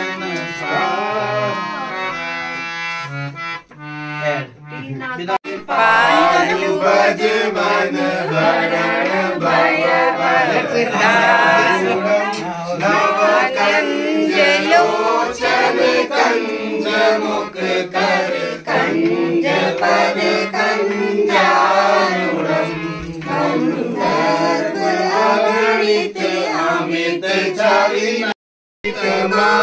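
Hand-pumped harmonium playing held notes. From about five seconds in, voices sing along with it in a chant-like style. The sound cuts out for a moment near the end.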